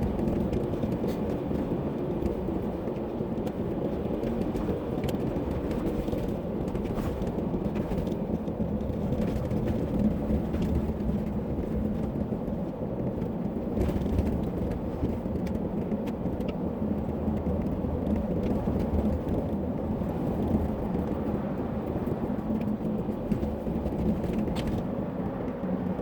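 Steady engine and tyre noise of a car driving along a snow-covered road, heard from inside the car.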